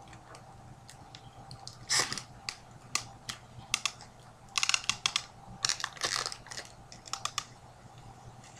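Foil wrapper of a trading-card pack being torn and peeled open by hand: irregular bursts of crinkling and crackling, one about two seconds in and a cluster around five to six seconds.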